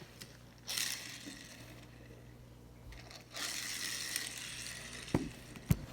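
Rustling and crinkling handling noise in two stretches, about a second in and again from about three seconds in, with two sharp clicks near the end.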